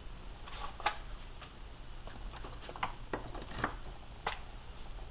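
A scatter of faint, irregular clicks and light taps from objects being handled on a workbench.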